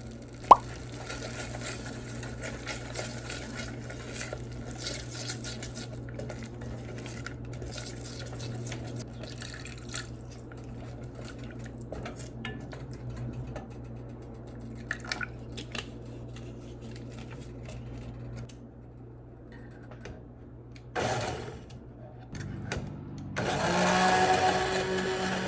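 Kitchen sounds: a steady low hum with scattered clinks and taps, and one sharp clink about half a second in. In the last couple of seconds a louder, steady whirring sound starts.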